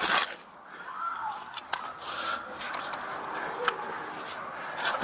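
Rustling and scraping noises with a loud burst at the start and a few sharp clicks, with faint voices in the background.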